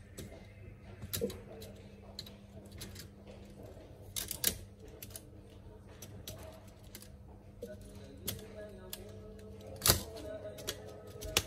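Scattered light clicks and taps of a replacement laptop keyboard being laid into the top case and pressed down by hand, the loudest about ten seconds in. A steady low hum runs underneath.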